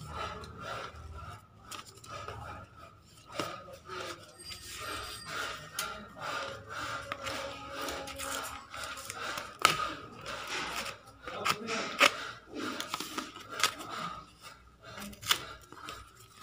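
A kitchen knife sawing and scraping through a corrugated cardboard box and its tape, with the cardboard rustling and flaps being pulled apart. The cutting comes as irregular scrapes and sharp clicks.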